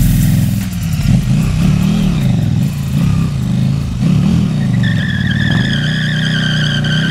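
KTM 1290 Super Duke R's V-twin engine revving up and down over and over. About five seconds in, a high, slowly falling squeal joins it: the rear tyre spinning on the pavement.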